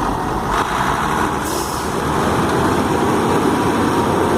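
Heavy diesel engines of farm tractors running steadily under load while towing a heavy truck, with a short hiss about one and a half seconds in.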